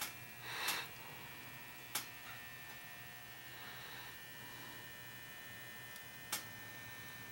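KitchenAid long-slot toaster toasting with its elements powered, giving a steady low electrical hum. A few sharp ticks stand out, one about two seconds in and another near the end.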